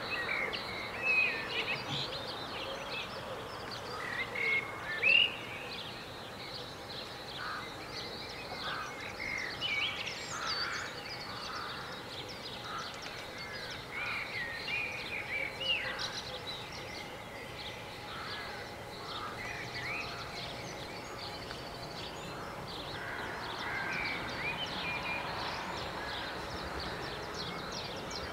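Songbirds chirping and calling over steady outdoor background noise, with two louder calls about one and five seconds in.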